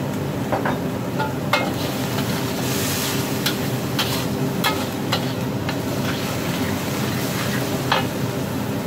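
Minced pork sizzling in a hot wok as a metal spatula stirs and scrapes it, with several sharp clinks of the spatula against the wok over a steady low hum.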